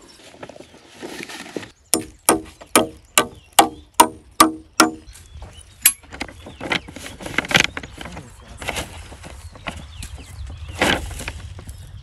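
Hammer driving nails through black polythene sheet into a wooden pole: about ten quick, ringing blows, about three a second, with one more a second later. Then rustling and crinkling of the plastic sheet as it is wrapped around the pole.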